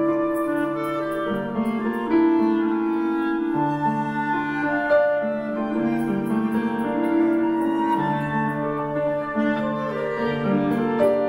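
Small wind ensemble playing a slow pop ballad: a flute carries the melody over held chords from clarinets and saxophones, with piano and light percussion ticks keeping time.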